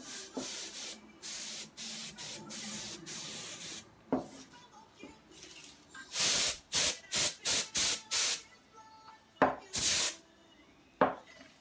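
Compressed air sprayed through a thin straw nozzle onto wet alcohol ink, pushing the ink across the canvas. A long hiss in short pulls for the first four seconds, then a quick run of about six short bursts, and one more near the end, with a few sharp clicks in between.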